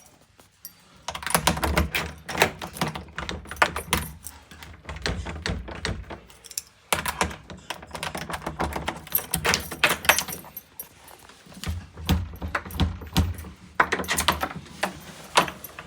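Night latch and key hardware being worked by hand: bursts of metallic clicking and rattling with low knocks, in four spells with short pauses between them.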